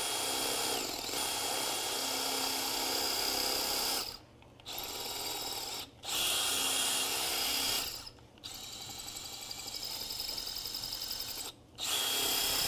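Cordless drill with a standard masonry bit, run without hammer action, boring into a concrete floor. The motor whines in five runs with short stops between them, one of them quieter and fluttering. The drill's battery is dying.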